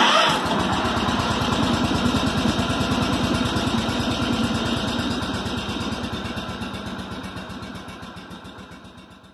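An engine running at a steady idle with an even, rapid firing pulse. It starts abruptly and fades away over the last few seconds.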